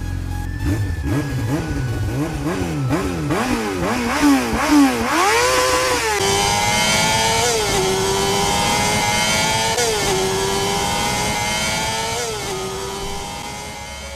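Motorcycle engine revving: a run of quick throttle blips, each rising and falling, that climb higher toward a hard rev about five seconds in. Then it accelerates through several gears, the pitch climbing in each gear and dropping sharply at each upshift, and fades out near the end.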